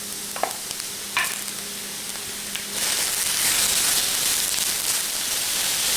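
Chicken pieces frying with toasted quinoa in hot oil in an electric wok: a hiss with a couple of sharp utensil taps, then the sizzle jumps suddenly much louder about halfway through and stays loud.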